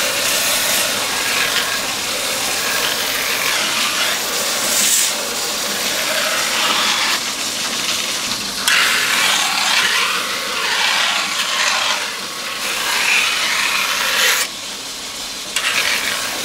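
Kitchen knife blade pressed flat against a large motor-driven whetstone wheel, ground wet on its back face (ura-togi): a steady grinding hiss that swells and eases as the blade is worked across the turning stone. It drops away briefly near the end.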